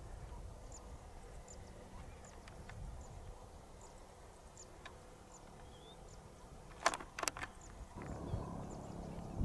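Outdoor grassland ambience: a low rumble with faint, short high chirps repeating every half second or so. Two sharp clicks come close together about seven seconds in, and the low background shifts about a second later.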